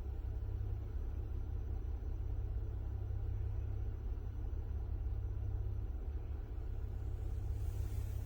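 Steady low rumble heard inside a car's cabin, with no other distinct sound over it.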